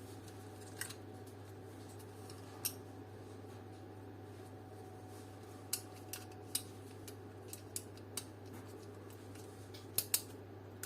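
Small sharp clicks and taps of a dome light's metal contact springs and plastic parts being handled and fitted, scattered irregularly, with two louder clicks close together near the end. A steady low hum runs underneath.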